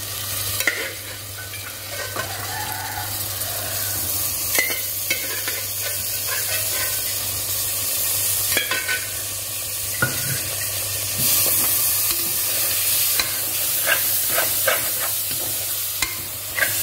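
Pieces of boiled mutton sizzling as they go into hot masala in an aluminium pressure cooker, with a metal ladle scraping and clicking against the pot as it stirs them in. The steady frying hiss marks the stage where the meat is sautéed in the masala.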